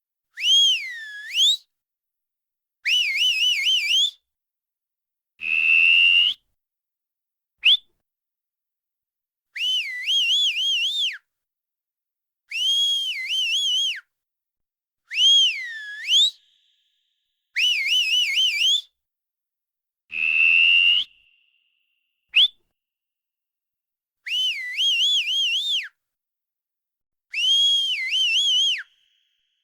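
A person whistling through the lips: a series of separate high whistled calls about a second long, with silent gaps between. Some swoop down and back up, some warble quickly up and down, some are held steady, and two are very brief chirps.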